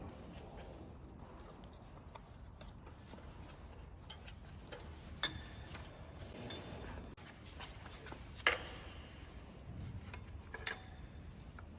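Metal tools and parts clinking against each other: a few light clicks and three sharper metallic clinks with a short ring, about five, eight and a half, and ten and a half seconds in, over a low hum.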